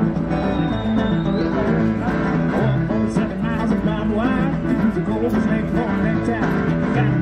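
Background music with guitar, playing steadily throughout.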